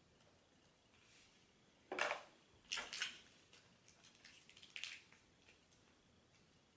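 A person eating fast food close to the microphone: quiet chewing and mouth sounds, with a few short sharp crackles about two seconds in, around three seconds and near five seconds.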